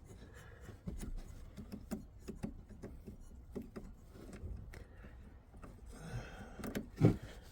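Faint, irregular small clicks and taps of a plastic wiring connector being handled and pushed at by hand, with a brief louder thump about seven seconds in.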